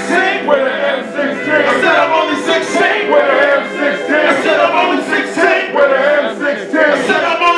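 Live hip hop: several male voices rapping and chanting together with the crowd over the music, loud and dense, with the beat's deep bass cut out.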